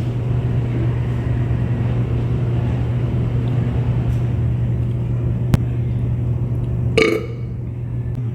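A short burp about seven seconds in, over a steady low hum, with a single sharp click about five and a half seconds in.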